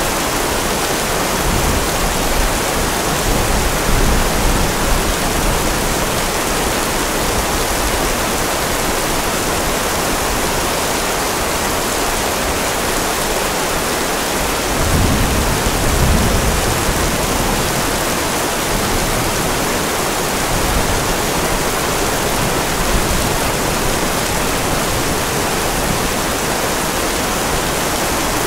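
Steady heavy rain, an even hiss, with a low rumble of distant thunder swelling briefly about halfway through.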